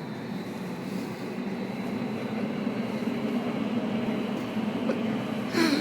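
Hurricane-simulator booth's blowers running, a steady rushing wind that slowly builds in strength. A brief, sharper sound breaks through just before the end.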